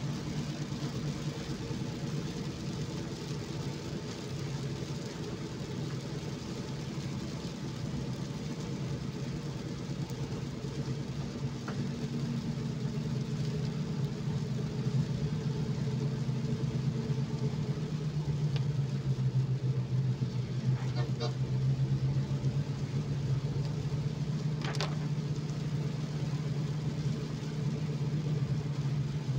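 Steady hum of a car's engine with tyre noise on a wet road, heard from inside the cabin while driving. A few short clicks come late on.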